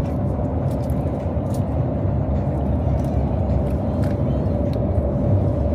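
Steady road and engine rumble heard from inside a moving car's cabin, with a faint steady hum above it.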